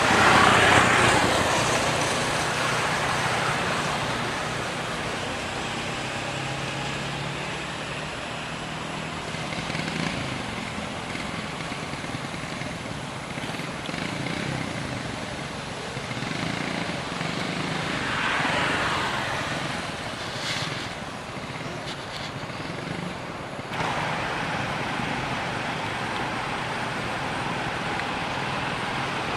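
Road traffic noise: a steady wash of passing vehicles. It swells as a vehicle goes by at the start and again a little past the middle, and the background changes abruptly near the end.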